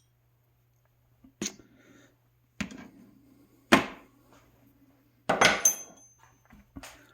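Steel wrenches being handled and set down: several separate metallic clanks, the loudest about halfway through, and a quick cluster near the end with a short high ring.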